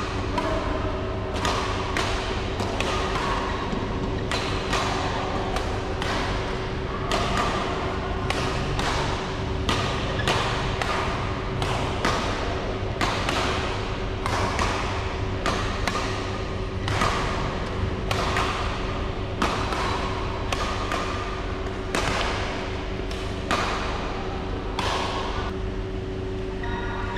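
Badminton rackets hitting a shuttlecock back and forth in a rally, a sharp crack about once a second, echoing in a large hall over a steady low hum.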